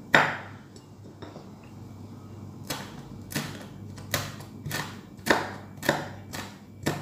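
Kitchen knife slicing red chilies thin on a wooden cutting board, a sharp knock as each cut hits the board. One knock at the start, then after a pause about seven more, roughly one every two-thirds of a second.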